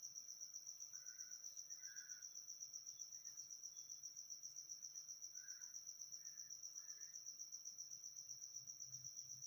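A cricket chirping faintly in a steady, even trill of high-pitched pulses, about seven a second.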